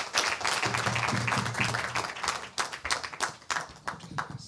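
Audience applause, dense at first, then thinning into scattered claps in the last couple of seconds.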